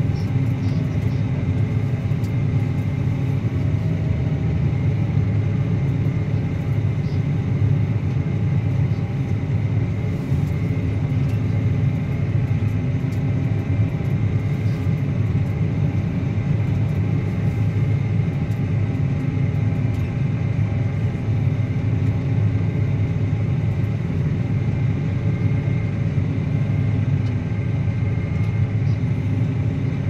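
Claas Axion 850 tractor's diesel engine running steadily under load as it pulls a mounted Kuhn Varimaster reversible plough through the soil. The result is an even, unbroken low drone.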